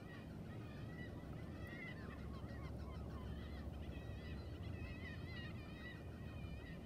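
Many birds calling at once, a dense chatter of short overlapping calls, over a steady low rumble.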